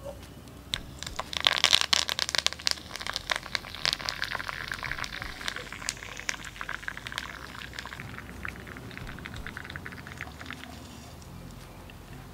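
Fresh curry leaves spluttering and crackling in hot oil in an iron tempering ladle, over mustard seeds and dals that are already fried. A dense run of pops starts about a second in, is loudest for the next few seconds, and thins to a faint sizzle near the end.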